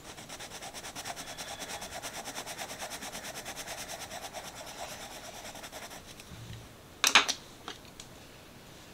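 Derwent Inktense pencil scratching on sketchbook paper in rapid, regular back-and-forth strokes as a colour swatch is filled in, stopping about six seconds in. About a second later there is a sharp clack, the loudest sound, as the pencil is set down on the table.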